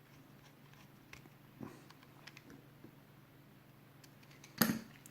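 Faint clicks of small parts being handled while a grub screw is tightened into an airsoft pistol's safety lever, with one louder brief knock near the end.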